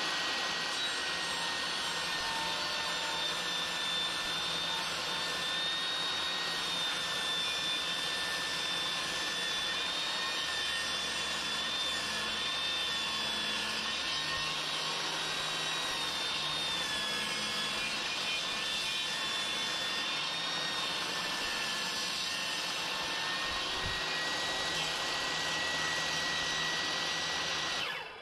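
Craftsman 10-inch, 15-amp portable table saw running steadily with a high motor whine while ripping a thin strip off a wooden board.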